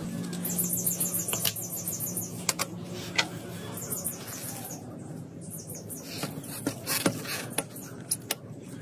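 Small metal tools clicking and tapping on watch parts, with two short runs of fast scraping strokes, one near the start and one about four seconds in, over a steady low hum.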